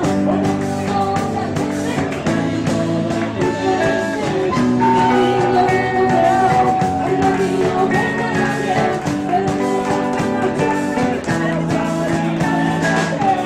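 Rock band playing live, with guitars and a drum kit.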